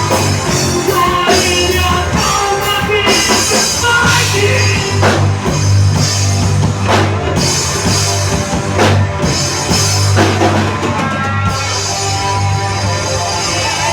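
Rock band playing live: a drum kit with repeated cymbal crashes over a steady, loud bass line and pitched instruments.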